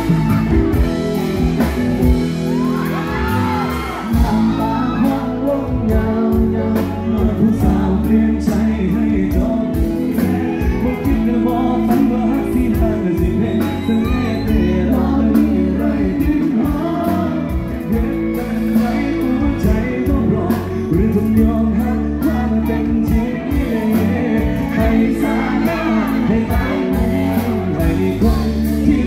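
Live band with electric guitar playing with a steady beat, a male singer singing over it through the PA, and fans in the crowd shouting and whooping.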